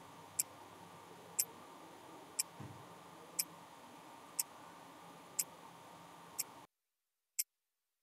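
Wristwatch ticking, one sharp tick each second, faint over low room tone. The room tone cuts out near the end while the ticking carries on.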